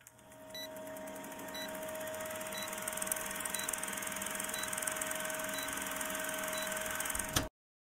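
Film-countdown sound effect: an old movie projector running with a steady mechanical clatter, hiss and hum, and a short high blip once a second as the numbers count down. It cuts off suddenly near the end.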